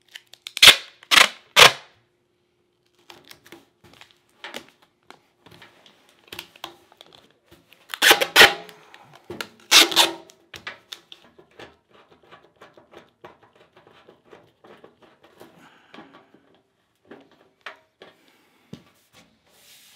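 Aluminium foil tape being ripped off its roll in short, loud tears: three quick rips about a second in, then another run of rips around eight to ten seconds in. Between them come light crinkles and taps as the tape is pressed onto a vent pipe seam.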